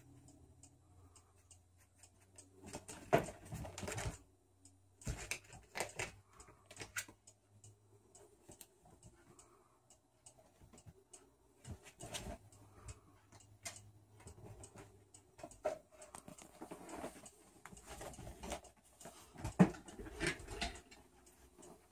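Irregular rustling, scratching and knocking from a groundhog clambering over an upholstered office chair and a towel draped on it, with the loudest knocks about three seconds in and again near the end.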